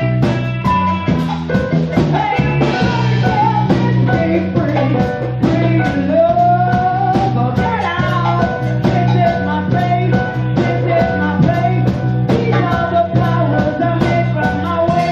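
Live band playing: electric guitar and a drum kit keeping a steady beat, with a woman singing into a microphone.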